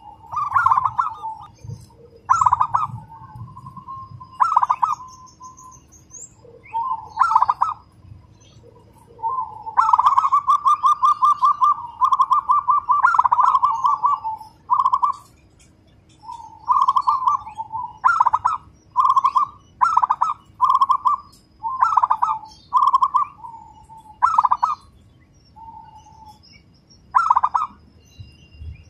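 Zebra dove (perkutut) singing: repeated bouts of rapid, closely packed coos at a steady pitch, one run going on for about five seconds near the middle.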